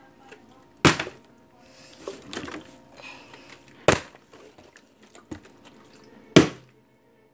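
Water bottle tossed in bottle flips, landing with three sharp thuds about two and a half seconds apart, with a smaller knock and soft rustling between.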